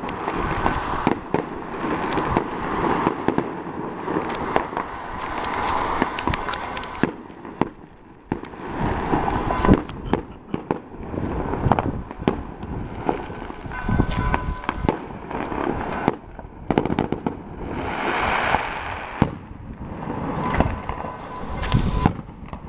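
A fireworks display: repeated bangs and bursts of crackling, in clusters of several seconds, some deep booms among them.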